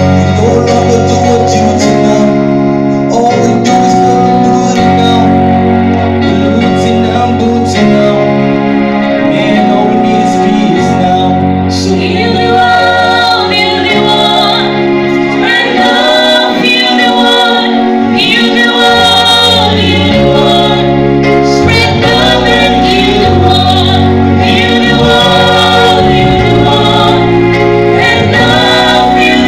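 Live band music with sustained chords and a bass line; a group of singers joins in about twelve seconds in.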